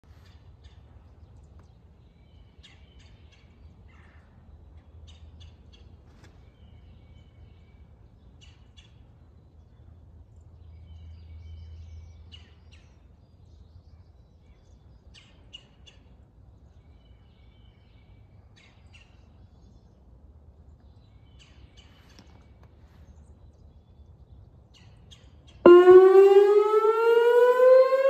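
Quiet outdoor background with scattered faint bird chirps. Then near the end a Whelen 2910 electronic tornado siren starts its monthly-test alert tone: it comes in suddenly and loud, with a pitch that rises.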